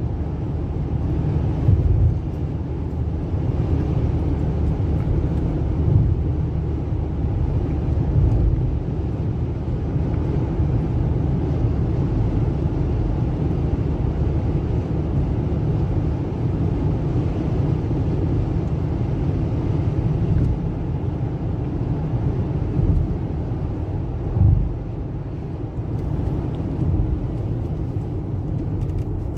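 A car being driven: a steady low rumble of engine and road noise, swelling briefly a few times.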